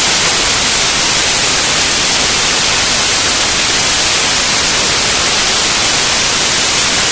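Loud, steady static hiss like white noise, even and unchanging, with no other sound standing out.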